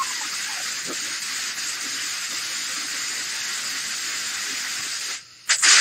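Fountain fireworks hissing steadily as they spray sparks. The hiss drops out briefly about five seconds in and comes back louder at the very end.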